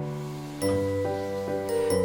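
Background music: sustained chords that change about every half second.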